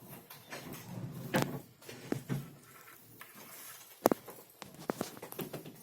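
Handling sounds: a scatter of light taps, clicks and rustles, with one sharp knock about four seconds in, as a wristwatch and its packaging are handled.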